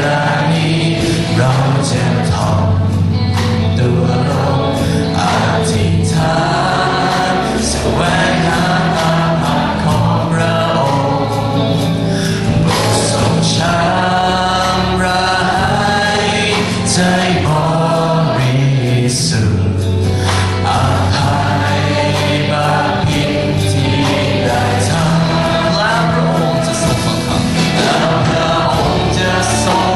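A live worship song: a man sings lead into a microphone over a band with piano, and many voices sing along with him.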